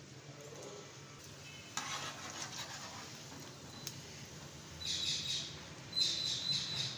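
Oil sizzling and crackling under a stuffed paratha frying on a flat tawa. It starts suddenly about two seconds in and swells twice near the end.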